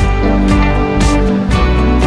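Background music led by guitar, with chords struck at a steady beat.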